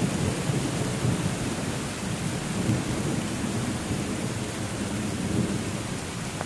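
Rain pouring steadily onto the leaves of a forest canopy, with a low rolling rumble of thunder that is strongest at the start and slowly eases off.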